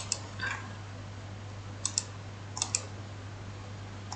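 Computer mouse clicking a few times, mostly in quick pairs, over a steady low hum.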